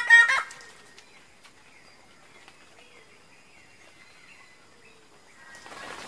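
Bird-of-paradise calling: a loud, harsh burst of about three quick notes right at the start, followed by faint scattered calls. A steady background hiss rises near the end.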